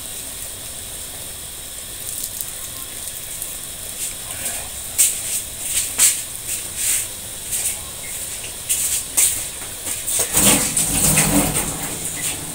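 Kangkong (water spinach) sizzling in a steel wok over a gas flame, a steady hiss, with scattered clicks of a utensil against the wok. A louder clatter near the end.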